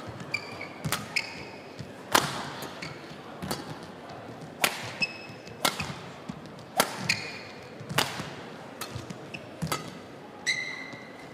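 Badminton rally: the shuttlecock is struck hard by racket after racket, a sharp crack about once a second. Short squeaks of players' shoes on the court floor come between the hits.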